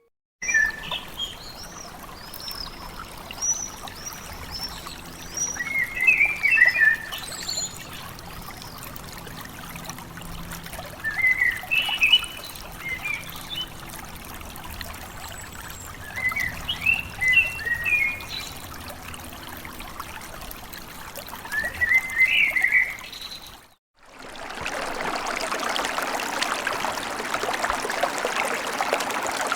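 Nature-sound ringtone from an Itel S25 Ultra: birds chirping in short bursts every few seconds over trickling water. After a brief break about 24 seconds in, a louder steady rush of running water begins.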